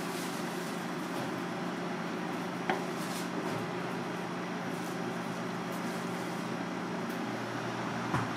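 Steady background hum like a ventilation fan or air conditioner, with a sharp knock of a kitchen knife on a plastic cutting board about three seconds in and another near the end.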